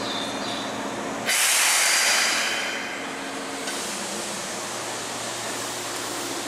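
Keihan commuter train releasing compressed air: a sudden loud hiss starts about a second in and fades over the next second or two, over a steady electric hum from the trains.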